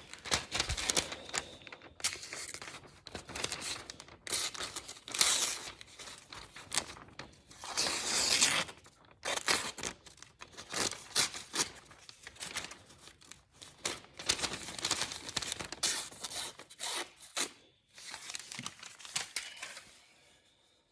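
A hand-made 1075 steel knife slicing through thin magazine paper: a long, irregular series of rasping, tearing cuts with the paper crinkling between strokes, fading out near the end.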